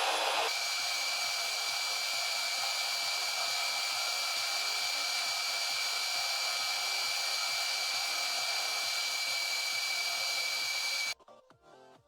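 A power tool or motor running steadily with a hissing whir and a high whine, shifting slightly about half a second in, then cutting off abruptly near the end.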